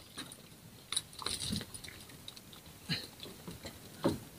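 A few short, irregular clicks and knocks from fishing rod and tackle being handled on a boat, over a faint steady hiss.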